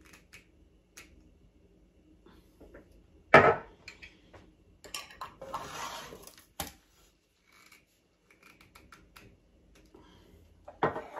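Metal lids being screwed tightly onto hot glass jars of red currant jelly, with a rasping stretch of lid and tea-towel friction and scattered clinks and knocks of glass and metal as the jars are handled on the tray. The loudest is a sharp knock about three seconds in.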